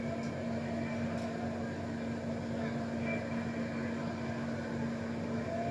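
Steady electrical-type hum under the low murmur of an arena crowd.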